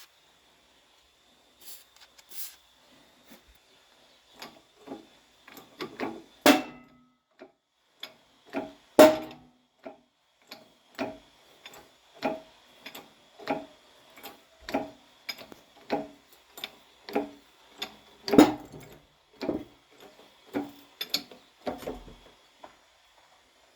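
Hammer blows on steel tractor parts. A few scattered knocks come first, then from about a third of the way in a steady run of sharp, ringing strikes, close to two a second.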